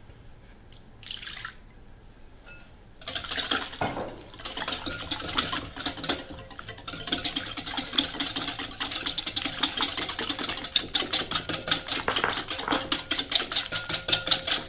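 Wire whisk beating a thin, milky batter of egg and milk in a glass bowl. The whisk starts about three seconds in: quick, even strokes clicking against the glass with the liquid sloshing, getting faster and more regular later on.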